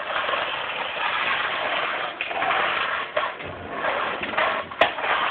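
Toy Dyson ball vacuum cleaner running, its small motor whirring steadily, with a couple of sharp clicks near the end.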